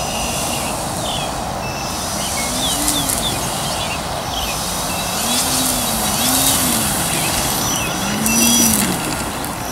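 Model airplane's E-flite Power 90 brushless electric motor and 15x7 propeller, its buzzing pitch rising and falling four times as the throttle changes during low flying. The motor runs on without stalling at low throttle. A steady rushing noise sits under it.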